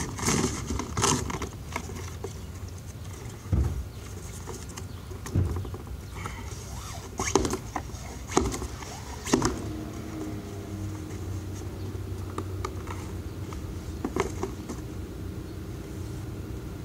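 Cardboard box being yanked and jolted by a paracord monkey fist lodged in it: a string of irregular sharp knocks, crunches and rustles of cardboard over the first ten seconds, then one more knock later.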